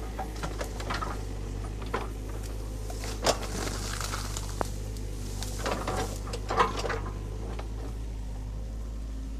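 Excavator working a muddy bank: its engine runs as a low steady drone while the bucket makes scattered knocks and crackles, the loudest about three seconds and six and a half seconds in.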